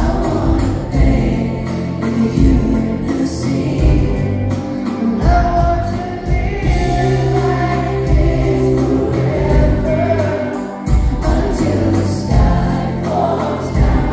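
Live pop band with keyboards and a steady beat, a male lead singer's voice over it, heard loud through an audience member's phone in a reverberant hall.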